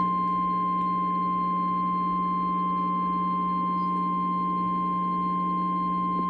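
NOAA Weather Radio's 1050 Hz warning alarm tone: a single steady pitched beep that cuts in abruptly and holds at one level, over a low steady hum from the receiver. It is the alert signal that a weather warning message is about to be broadcast.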